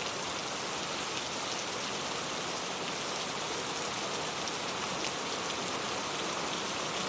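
Steady gentle rain falling, an even hiss with faint scattered drop ticks.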